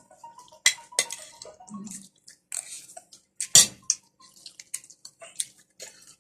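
Eating sounds at a shrimp and crab meal: irregular clicks and clinks of plates and utensils mixed with short wet smacking sounds of food being handled and eaten. The loudest is a sharp knock about three and a half seconds in.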